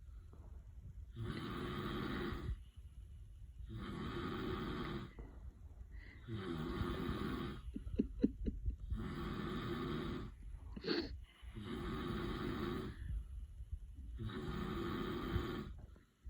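A man snoring steadily: six long snores about two and a half seconds apart. Between them come a quick run of faint clicks about halfway through and a short high squeak a few seconds later, the kind of whimper a dreaming Weimaraner makes in its sleep.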